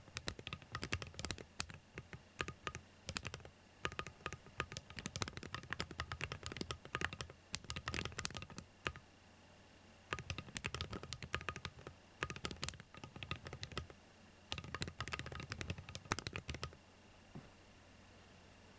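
Typing on a Gravity45 keyboard fitted with Awekeys Wild Ice metal keycaps: quick runs of clicking keystrokes with a couple of brief pauses. The typing stops near the end, leaving a faint steady hum.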